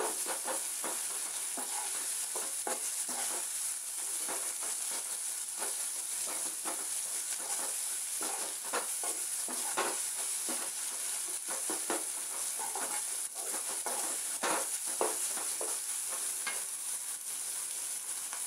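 Chopped onion and green chilli sizzling in oil in a metal kadai while a metal ladle stirs them, scraping and knocking against the pan in quick, irregular strokes over a steady hiss.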